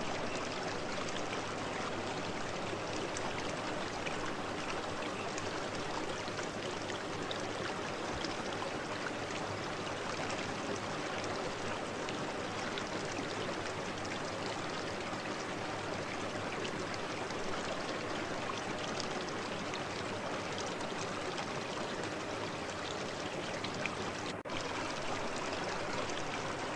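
Aquarium air stones bubbling steadily: a constant watery hiss, dotted with fine popping, with a momentary dropout near the end.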